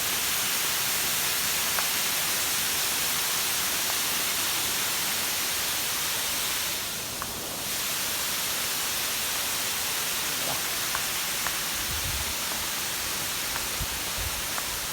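Waterfall rushing: a steady hiss of falling water that dips briefly about seven seconds in. A few faint clicks and some low bumps come near the end.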